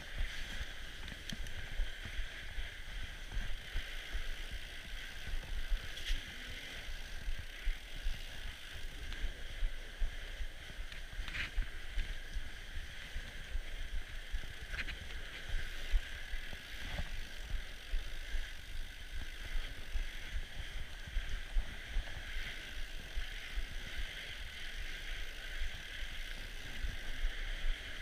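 Norco Bigfoot fat bike rolling over packed snow, heard from the handlebar: a steady crunch and rattle from the tyres and bike, with low wind rumble on the microphone. A few brief knocks stand out, one about six seconds in and a louder one around eleven seconds.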